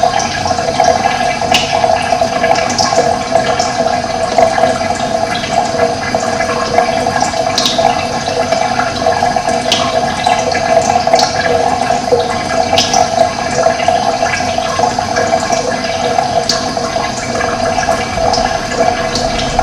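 Running water: a steady, loud rushing flow, with a few brief high sounds scattered through it.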